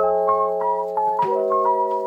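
Background music: a light melody of short notes over held chords that change about every second and a quarter.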